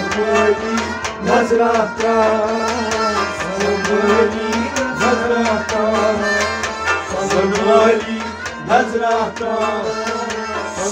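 Kashmiri folk ensemble playing an instrumental passage: harmonium and bowed sarangi carrying a sliding melody over plucked rabab, with a hand-played goblet drum keeping a busy beat of sharp strokes.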